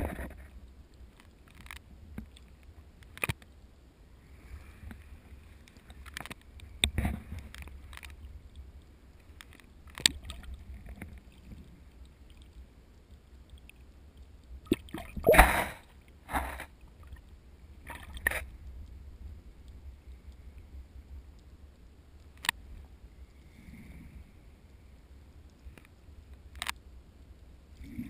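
Muffled underwater sound from a submerged camera in shallow water: a steady low rumble of moving water with a dozen or so sharp knocks and clicks scattered through it, the loudest about halfway through.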